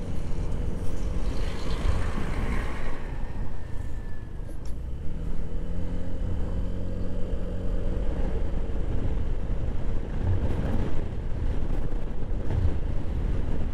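Honda PCX scooter cruising on a highway, its single-cylinder engine running steadily under wind and road noise on the rider's microphone. A truck is passed close alongside in the first seconds.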